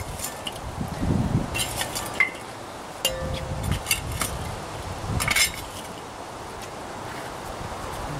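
Small metal shovel scraping across a Weber kettle grill's charcoal grate and shifting lit charcoal briquettes, which clink and rattle together in a few short bursts. The bursts end a little past halfway.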